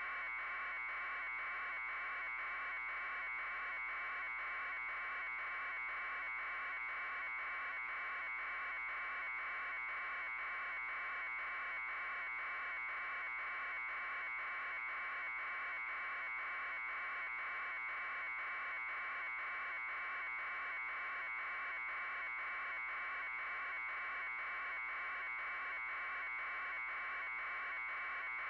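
Steady electronic buzz on a news helicopter's camera audio feed, holding one level and pitch with a fast, even pulse.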